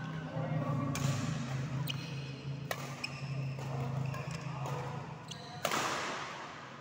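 Badminton rackets striking a shuttlecock in a fast doubles rally: sharp hits about a second apart, with footfalls and shoe noise on the court and a louder burst near the end. A steady low hum runs underneath.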